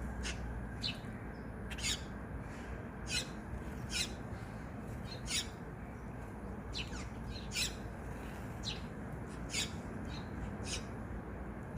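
Wild birds giving short, sharp, high chirping calls, about one a second at irregular intervals, over a steady low background rumble.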